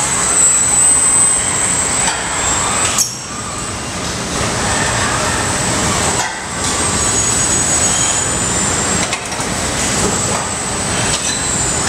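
Continuous machinery din of a car body-shop assembly line, where industrial robots work on bare car bodies. A thin, steady high whine sits over the noise, which dips briefly a few times.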